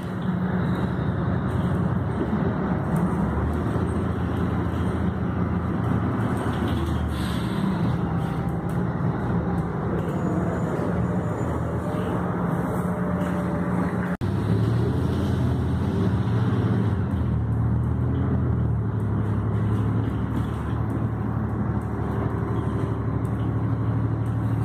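Inside a moving city transit bus: steady engine drone and road noise, the engine's pitch shifting as the bus changes speed. The sound cuts out for an instant about halfway through.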